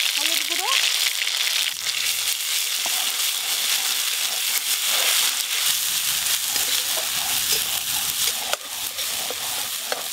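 Cumin and dried red chilli paste sizzling in hot mustard oil in a kadai while it is stirred with a spatula: a steady frying hiss with light crackles.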